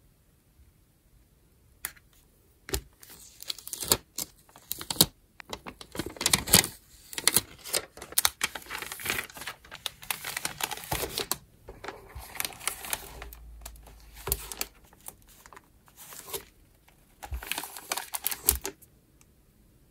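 Paper crinkling and rustling, with many small clicks and taps, as a paper-wrapped package is handled, coming in irregular clusters. It starts a few seconds in and stops shortly before the end.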